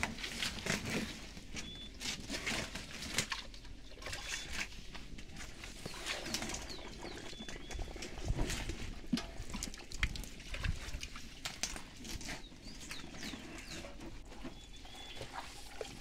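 Tilapia flapping in a wet mesh seine net while hands sort them out: irregular slaps and rustles of fish and net. Short bird chirps come now and then in the background.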